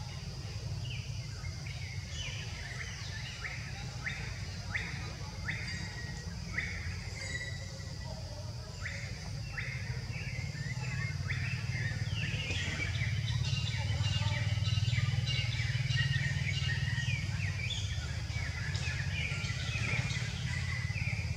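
Forest ambience: a bird gives short, sharp chirping calls over and over, about two a second, and more calls crowd in during the second half. Under them run a steady high insect whine and a low rumble.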